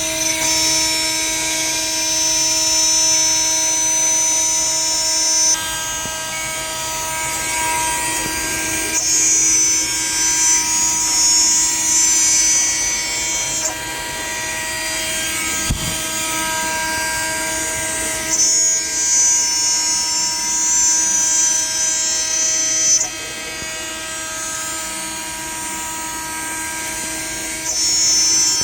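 CNC router spindle running with a steady high whine while the bit cuts material. The hissy cutting noise swells for stretches of several seconds and drops back between passes.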